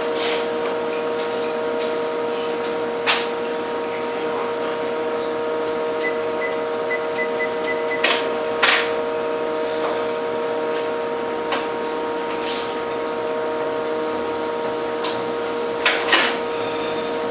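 Electric hair trimmer humming steadily, with a few sharp clicks and taps over it.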